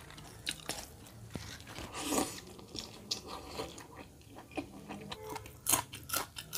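Close-miked eating sounds of a person eating chicken curry and rice by hand: irregular wet chewing and crunchy bites. Near the end come a quick run of louder crisp crunches as a green chilli is bitten.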